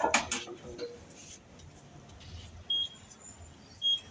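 Clicks and short high electronic beeps from a food vending machine's keypad as an item is selected, then the machine's dispensing mechanism starts up with a low hum and a thin high whine that grow louder about halfway through.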